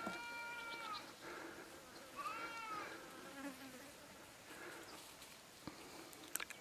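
Two high, clear animal calls, each under a second long: the first holds a steady pitch and dips at its end, and the second arches up and then down. A couple of sharp clicks follow near the end.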